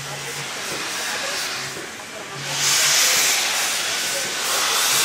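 Steam locomotive 475.101 pulling out with its train, hissing steam in long swells that fade and return, loudest about three seconds in.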